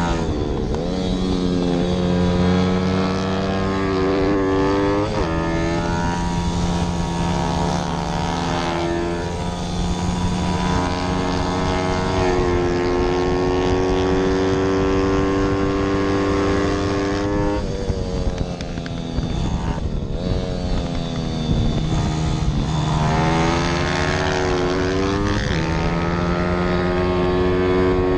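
Zongshen 160 cc single-cylinder pit bike engine heard from a camera mounted on the bike, revving hard under racing load. It holds high revs on the straights, drops sharply in pitch several times as the rider shuts off and downshifts for corners, then climbs again.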